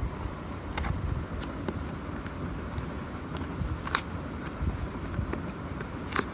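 Keyboard packaging being handled and opened: scattered sharp clicks and light rustling over a low rumble of handling noise, with one louder click about four seconds in.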